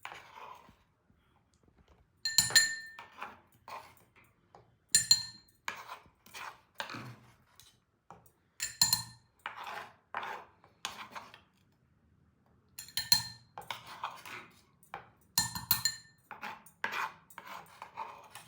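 Metal kitchen utensils knocking and clinking against dishes in an irregular run, with about six sharp ringing clinks among softer knocks.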